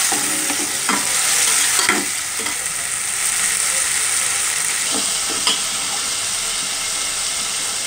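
Onions, garlic and tomatoes sizzling in hot oil in a metal pot, with a steel spoon stirring them and clinking against the pot a few times.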